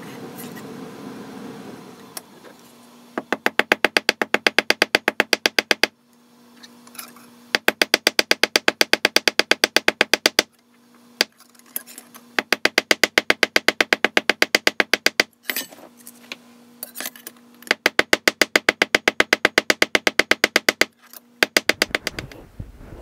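Ball-peen hammer tapping rapidly on a wire rivet in a brass sheet resting on a steel bench block, about eight taps a second in runs of about three seconds with short pauses between, the block ringing faintly under the blows. The rivet end is being peened over, mushrooming it to fill the countersink for a flush rivet.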